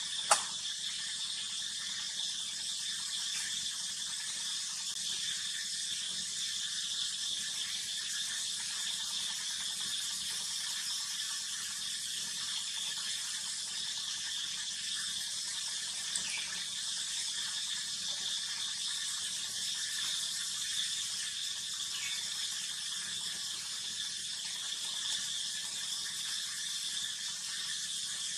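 A steady high-pitched background drone, with a single sharp click right at the start and two faint short chirps around the middle.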